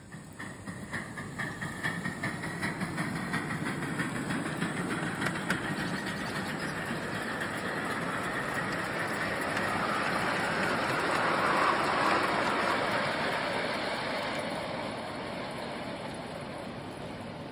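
Ridable live-steam miniature locomotive pulling away: quick exhaust chuffs at first, merging into a rushing hiss of steam and running gear on the track. The noise swells to its loudest about two-thirds of the way through, then eases as the train draws off.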